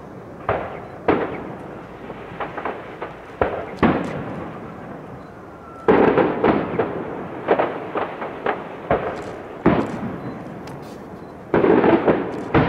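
Aerial firework shells bursting in a professional display: a string of sharp bangs, each trailing off, in loose clusters, with the densest, loudest volleys about six seconds in and again near the end.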